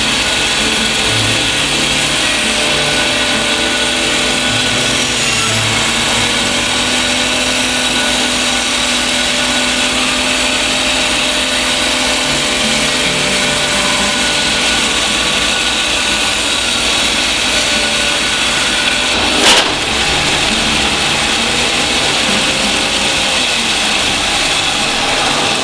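Shopsmith Mark VII running its bandsaw attachment with a steady, loud motor and blade noise. About three-quarters of the way through there is one sharp bang, the sign of something coming apart inside the roughly 60-year-old machine.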